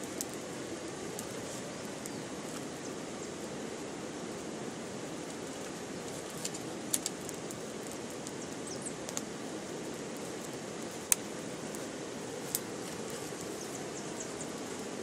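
Small campfire of dry twigs crackling: a few scattered sharp pops, the loudest about eleven seconds in, over a steady low rushing noise.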